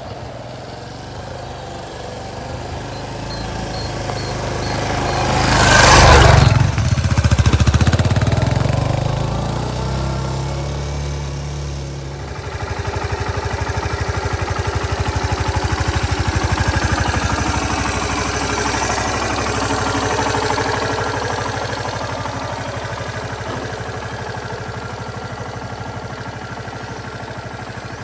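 Suzuki Van Van 200 motorcycle's single-cylinder engine running: it grows louder to a peak about six seconds in and then eases off. From about twelve seconds it settles into a steady, evenly pulsing note that slowly fades.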